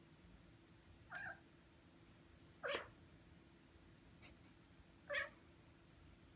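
Six-month-old Ragdoll cat giving three short meows, about a second, two and a half seconds and five seconds in, the last two louder.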